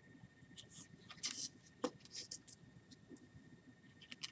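Small plastic parts of a Logitech Harmony universal remote being handled during disassembly: light clicks and rustles, with a sharper click about two seconds in and a couple more near the end.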